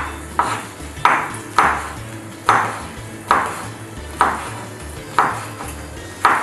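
Kitchen knife slicing hot chili peppers into rings on a wooden cutting board: sharp knocks about once a second, unevenly spaced, each with a brief ring.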